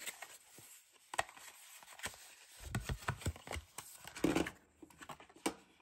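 Cardboard packaging being handled: scattered rustles, light scrapes and taps as a computer mouse is slid out of its cardboard sleeve and insert, with a cluster of soft knocks midway.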